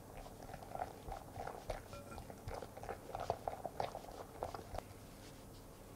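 A whisk stirring thick ganache in a glass bowl as butter is worked in: quick, irregular wet squelches and light clicks, which stop about five seconds in.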